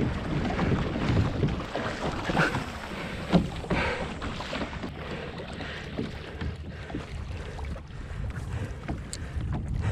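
Water splashing and lapping around a kayak, with wind on the microphone.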